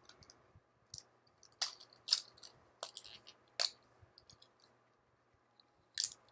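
Plastic toy packaging handled by hand as small accessories are worked free: about half a dozen sharp, irregular clicks and crackles.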